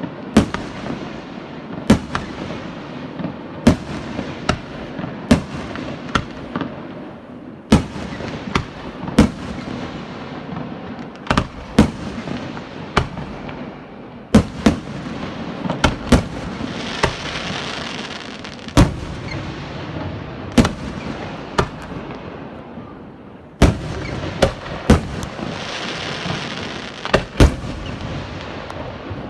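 Aerial fireworks display: loud shell bursts going off about once or twice a second over a continuous crackle. A brighter crackling swell comes about halfway through and again near the end.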